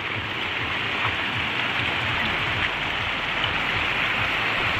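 Heavy rain pouring down steadily in strong, gusting wind.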